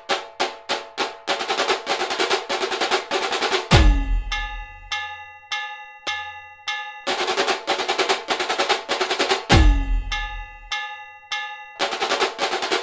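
Drum-driven background music: fast rolls of hits building to a deep boom about four seconds in and again near ten seconds, with sparse hits and a few held notes between, and a third roll near the end.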